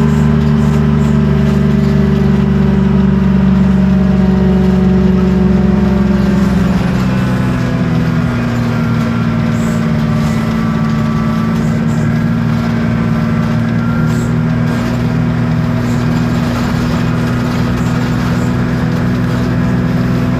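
Isobus City 1200 city bus under way, its MAN D0836 LOH six-cylinder diesel running steadily. About seven seconds in the engine note steps slightly higher and a little quieter, and after that faint whining tones rise gently over it.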